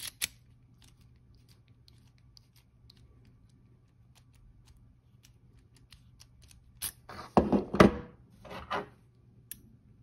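A metal key worked in a euro-profile cylinder lock and pulled out: two sharp clicks at the start, faint ticks of metal on metal, then a louder run of scraping and clatter from about seven to nine seconds in.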